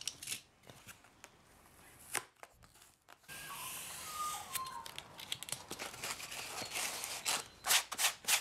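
Snap-off utility knife slicing through packing-tape-covered foam, a scratchy cutting sound with many small clicks. The first few seconds hold only a few separate clicks, and the cutting runs steadily from about three seconds in. The knife is half cutting through the wing for the aileron hinge.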